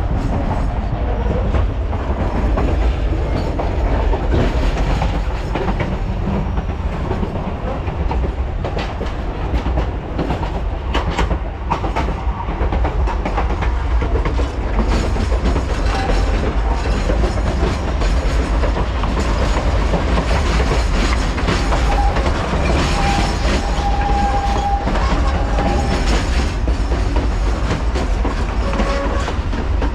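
Durango & Silverton narrow-gauge train cars rolling on the rails: a steady loud rumble with clickety-clack from the wheels over the track. A faint steady tone comes in for a few seconds past the middle.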